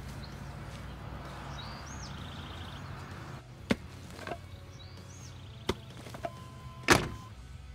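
Pickaxe chopping into an earth bank to dig out clay: about five sharp strikes in the second half, the last one the loudest.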